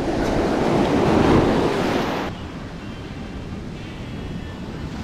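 Surf washing up a beach: a wave swells to a peak, then the sound cuts abruptly about two seconds in to quieter, steadier surf with wind on the microphone.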